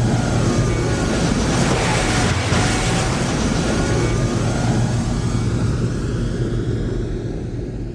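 A loud, steady rushing noise over a low hum, with faint gliding tones, fading away near the end.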